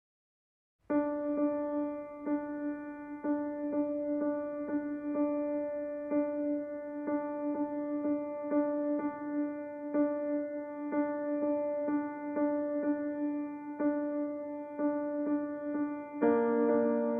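Instrumental keyboard music starts about a second in after silence, with held tones under notes struck about twice a second. The harmony changes near the end.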